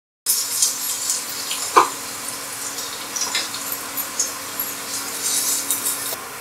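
Freshly added chopped onions sizzling and crackling in hot oil in a non-stick pan, with a single sharp knock about two seconds in. The sizzle eases slightly near the end.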